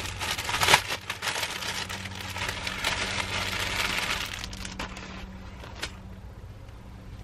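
Clear plastic bag crinkling as a microfiber towel is pulled out of it by hand, a dense rustle that dies down after about five seconds.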